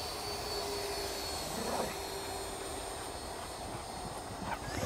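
Arrows Hobby BAE Hawk RC jet's electric ducted fan whining in flight, a steady high tone that slowly falls in pitch as it passes, over wind rumble on the microphone.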